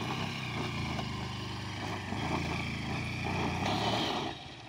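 Honda Unicorn's single-cylinder four-stroke motorcycle engine running under throttle as the rear wheel spins on loose, slippery dirt up an embankment. Near the end there is a short burst of scrabbling noise, then the engine sound drops away suddenly.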